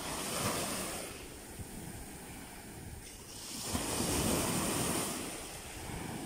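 Small sea waves breaking at the shoreline and washing up the sand in foam. There are two surges of surf, one just after the start and a louder one about four seconds in.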